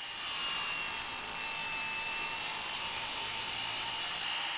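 Mitre saw motor running at full speed with a steady high whine, its blade making a cut into plywood for the fingers of a featherboard.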